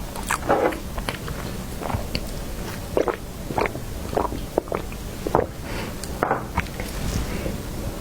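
Close-miked eating sounds of a person biting and chewing soft cake: a dozen or so short, uneven mouth clicks and smacks.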